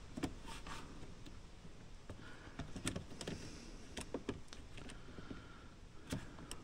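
Faint, scattered clicks and light taps of small parts being handled as a drive shaft is worked into place on an RC crawler's chassis.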